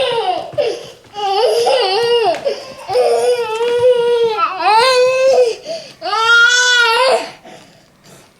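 A young child crying in a string of long wails, about five in a row, fading out near the end.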